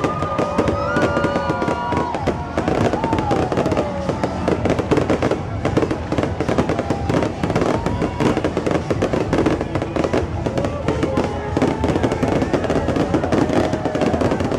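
Fireworks going off in a dense, unbroken run of bangs and crackling, with some gliding whistle-like tones in the first few seconds.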